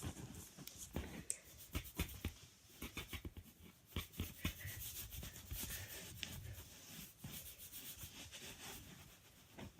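Pen scratching on paper in many quick, short, irregular strokes.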